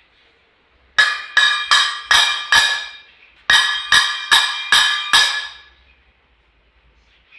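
A hard, ringing object, metal or glass, struck ten times in two runs of five, about two and a half strikes a second. Each strike rings on briefly with a clear tone.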